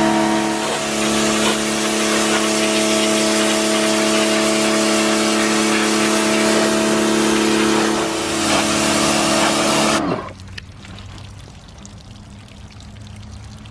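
Greenworks Pro 60V battery pressure washer running: a steady motor-and-pump whine with the hiss of the water jet. It cuts off suddenly about ten seconds in, leaving only a faint low hum.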